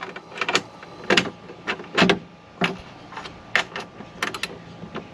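A hand tool clicking as it tightens a bolt fitted with a lock washer and flat washer: about a dozen short, sharp clicks at irregular intervals as the bolt nears tight.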